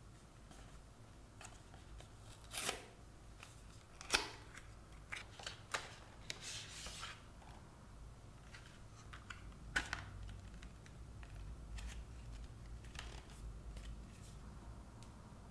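Hands handling a paper case box and a clear plastic phone case: scattered light rustles, scrapes and taps as the box is opened and the case is slid out of its paper tray, with a few sharper clicks among them.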